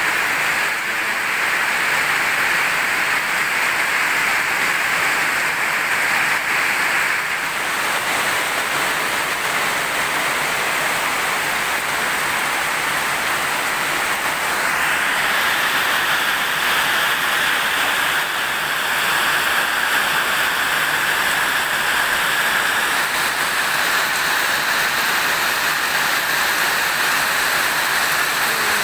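Heavy rain pouring down steadily, a dense even hiss of a tropical downpour.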